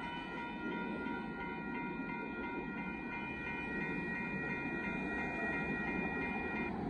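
Amtrak Texas Eagle passenger train rolling past with a steady rumble of wheels on rail. Over it a locomotive horn holds one steady chord of several notes, which cuts off near the end.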